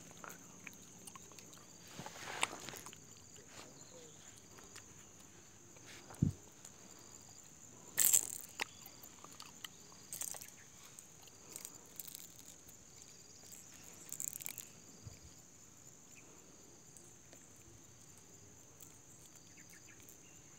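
Insects chirring: a steady high-pitched trill with faint short chirps repeating about once a second. A few knocks and rustles from handling the caught fish break in, the loudest about eight seconds in.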